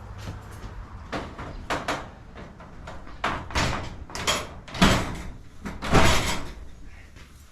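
Garage door parts being handled and fitted during installation: a string of knocks and clatter, the loudest two about five and six seconds in.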